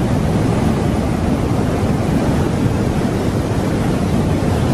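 Muddy floodwater torrent rushing and churning in a flooded river channel, a loud, steady rush of water with no breaks.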